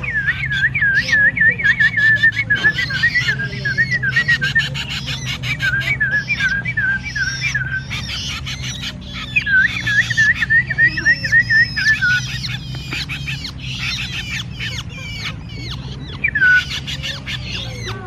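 Tame songbirds calling at close range: a rapid string of repeated whistled notes at the start and again about ten seconds in, mixed with short harsh chattering calls throughout.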